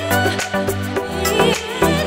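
Background music with a steady beat and a wavering melody line.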